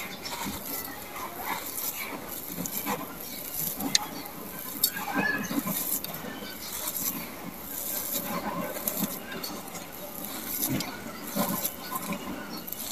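Hands scooping and crumbling dry sand-cement mixed with small gravel: continuous gritty rustling with small stones clicking, and a couple of sharper clicks about four to five seconds in.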